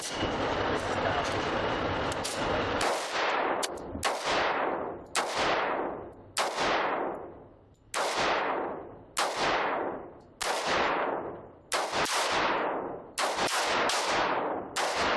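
A pistol fired shot after shot at a target, about a dozen sharp reports roughly a second apart with a couple of quick pairs near the end, each trailing off in a long echo. The first couple of seconds hold only steady background noise before the shooting starts.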